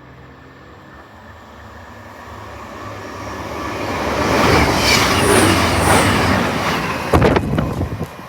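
Diesel passenger train passing at speed. It grows louder over the first few seconds and is loudest for about three seconds, with a few sharp clacks near the end as it fades.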